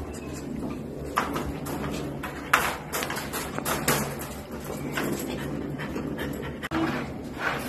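American Bully puppy crying out from a wire crate in a string of short, separate cries, about half a dozen over several seconds.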